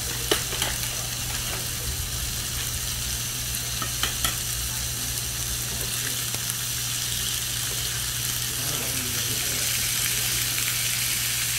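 Food sizzling steadily in a frying pan, with a few light clicks of a utensil against the pan: two just after the start and two about four seconds in.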